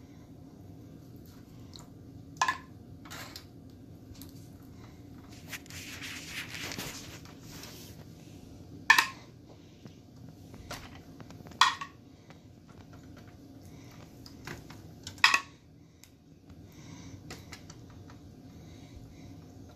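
A metal spoon clinking sharply four times as barbecue sauce is spread over ribs in aluminium foil, with a rustle of crinkling foil in between, over a steady low hum.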